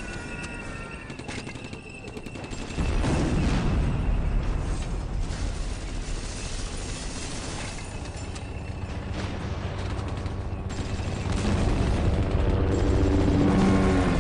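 Surround-sound test effects: a deep, loud rumble sets in suddenly about three seconds in, with crackling bangs over it, and it swells again near the end.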